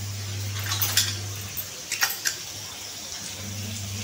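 A few light clicks and taps, mostly in the first two seconds, over a steady low hum.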